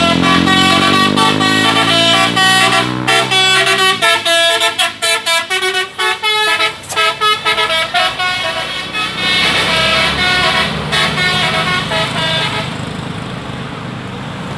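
A bus's musical air horn (telolet) playing a fast tune of quickly changing notes. Low tones rise steadily for the first few seconds underneath it.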